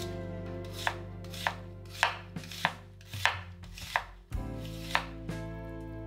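Kitchen knife chopping vegetables on a cutting board, slicing an onion near the end: about ten crisp knocks of the blade meeting the board, irregularly spaced.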